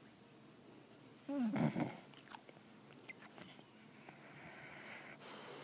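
Blue-nose pit bull snoring: one loud pitched snore about a second and a half in, then quieter breathing.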